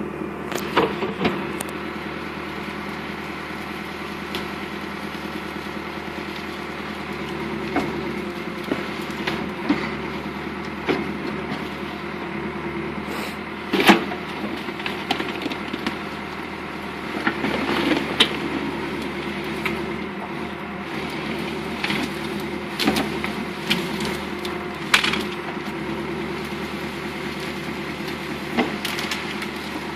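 A backhoe's diesel engine runs steadily, with sharp cracks and snaps scattered through it as brush and branches break. The loudest crack comes about halfway through.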